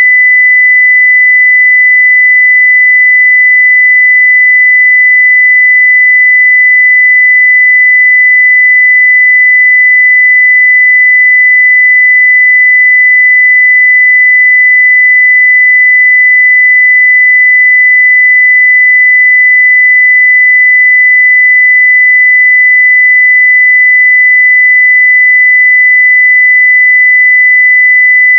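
A steady 2 kHz sine-wave test tone at near full scale (0 dB), one pure pitch held without change.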